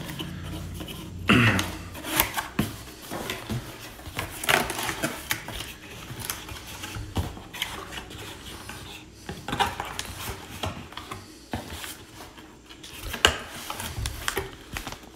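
Cardboard box being opened by hand: flaps pulled back and cardboard rubbing and scraping, with scattered sharp knocks and clicks.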